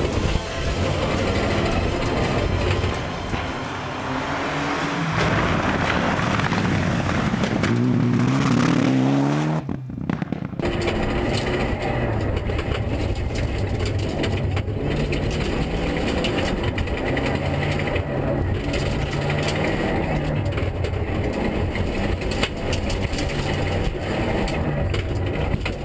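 Mitsubishi Lancer Evolution III rally car's turbocharged four-cylinder engine, heard from inside the cabin, driven hard through a stage: it revs up repeatedly through the gears, climbing highest about 8 to 10 seconds in, then drops off sharply for a moment as the driver lifts or shifts, and pulls hard again.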